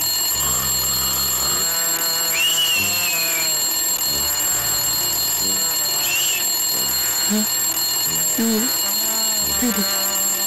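Alarm clock ringing steadily without a break, an annoying high ring going off as a wake-up alarm.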